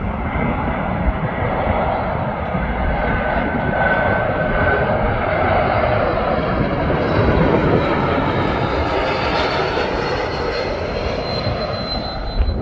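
Jet airliner on approach to land, passing close: a steady, loud engine rumble with a faint high whine that grows stronger near the end.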